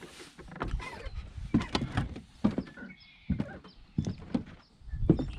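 Footsteps: a string of uneven knocks, roughly one or two a second, as someone walks over hard ground and debris.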